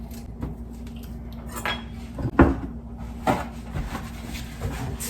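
Kitchenware being handled: about half a dozen separate clinks and knocks of dishes and utensils, the loudest about two and a half seconds in, over a steady low hum.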